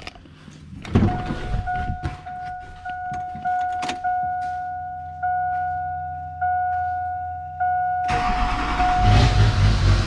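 The truck's warning chime dings over and over with the door open. About eight seconds in, the LB7 Duramax 6.6 L V8 turbodiesel cranks, catches and keeps running. This is the test start after the injector wiring repair.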